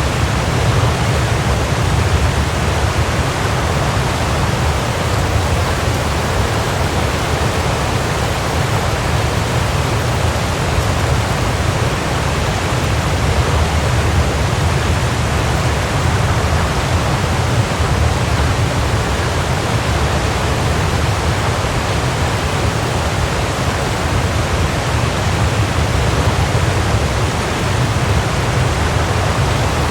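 Waterfall: a steady, unbroken rush of falling water with a deep low rumble beneath the hiss.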